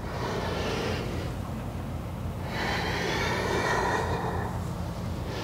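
A woman breathing audibly and slowly, breaths paced with a yoga cat-cow movement: one breath in the first second, a longer one from about two and a half seconds in, and another starting at the end.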